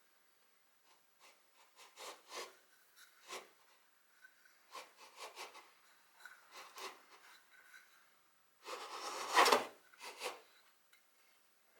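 Wood rubbed and scraped by hand in short, irregular strokes, with one longer, louder scrape about nine seconds in.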